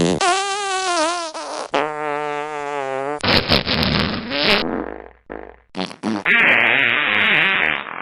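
Fart sound effects played back to back: two pitched, wavering toots in the first three seconds, then rougher, noisier ones, a few short blips, and a long rasp near the end.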